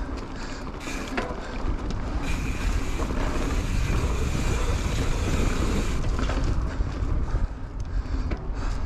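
Wind buffeting the microphone of a mountain bike riding a dirt singletrack, with a steady low rumble and scattered clicks and knocks from the bike on the trail.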